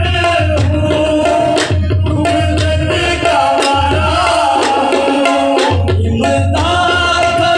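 Qawwali music: harmoniums holding sustained chords over a steady tabla and drum beat.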